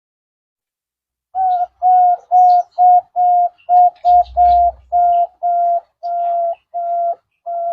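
Zebra dove (perkutut) singing: a steady string of about a dozen short coos at one pitch, about two a second. It starts a little over a second in and the last note runs on past the end.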